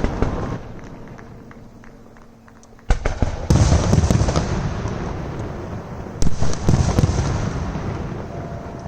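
Aerial fireworks shells bursting: a loud bang right at the start, then about three seconds later a heavy bang followed by more reports a moment later and again around six and seven seconds in. Each trails off in a long rumbling echo.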